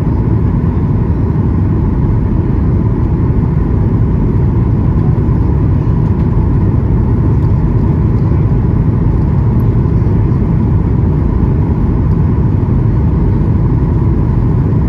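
Steady cabin noise inside a Boeing 737-800: a low, even engine drone and airflow rumble, with a faint steady whine on top.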